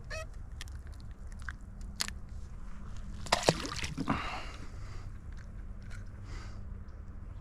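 Scattered clicks and rubbing handling noises, with a louder squeaky scrape and clicks about three and a half seconds in, over a steady low rumble.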